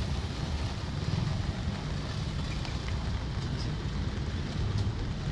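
Steady riding noise from a Honda CB150R motorcycle on the move: wind rumbling over the microphone, with engine and road noise underneath.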